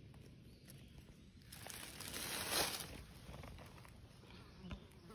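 Dry leaf litter rustling and crinkling, swelling for about a second and a half to a peak and dying away, followed by a few faint ticks.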